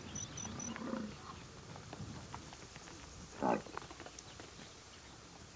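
A single short animal call about three and a half seconds in, falling steeply in pitch, over faint savanna ambience.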